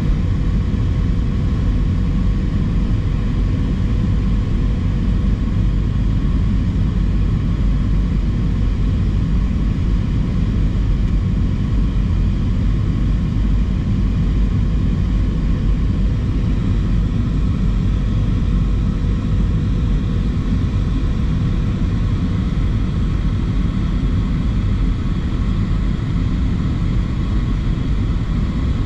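Steady cabin noise inside an Airbus A320, heard from a rear window seat: an even, deep rumble of engines and airflow with a faint steady hum above it.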